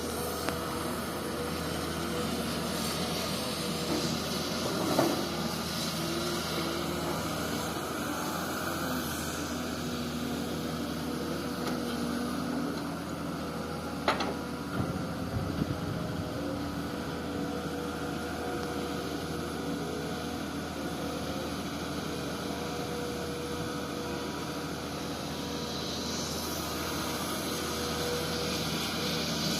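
Komatsu PC200 hydraulic excavator's diesel engine running steadily, with a sharp knock about fourteen seconds in.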